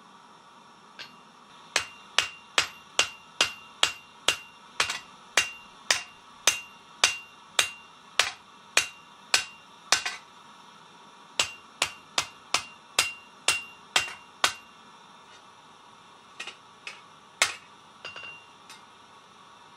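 Hand hammer striking a red-hot steel blade on an anvil, forging it flat: ringing blows at about two a second, a short pause about ten seconds in, a second run of blows, then a few lighter taps near the end.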